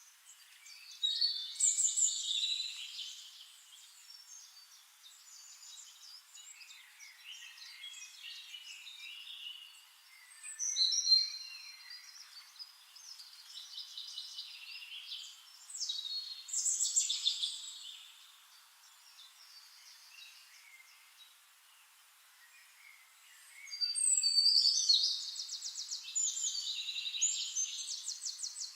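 Birds chirping and singing in intermittent bursts of high, quick chirps and sweeping notes, with a fast trill near the end.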